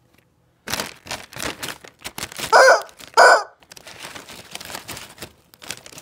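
Two loud, short squawks from a squeezed rubber chicken toy, about two and a half and three seconds in, over steady crinkling and rustling of a plastic chip bag.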